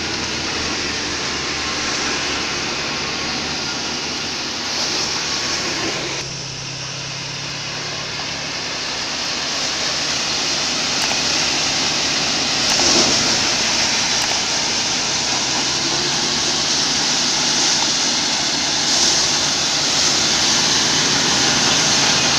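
Paddy thresher running under load as rice straw is fed into it: a steady, dense mechanical noise of the threshing drum and fans over a low engine hum. The sound changes abruptly about six seconds in, dipping in loudness, then builds back and stays steady.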